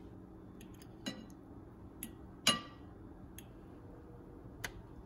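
Metal fork clinking against a glass plate while cutting into a stuffed bell pepper: four or five sharp clinks, the loudest about halfway through with a brief ring.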